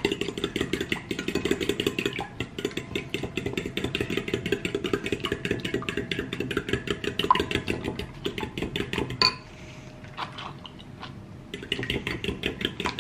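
Eggs and liquid cream being beaten by hand in a ceramic bowl, the utensil clicking rapidly against the bowl's sides. The beating pauses for about two seconds near the end, then starts again.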